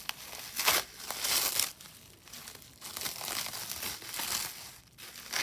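Plastic wrapping being crinkled and pulled apart by hand in irregular bursts as a layer of packed jewelry is unwrapped.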